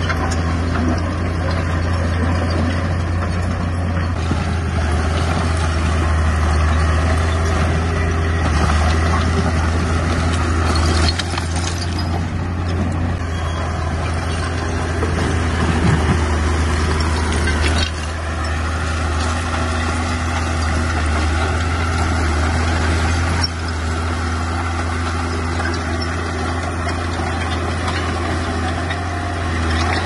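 Heavy diesel engine of a bulldozer running steadily, with a few sharp knocks.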